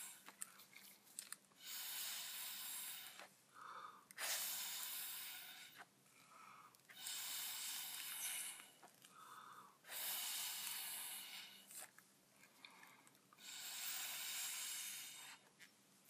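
Long puffs of breath blown through a drinking straw onto wet acrylic paint, pushing it across the canvas. There are five blows, each a second or two long, about every three seconds, with short in-breaths between them.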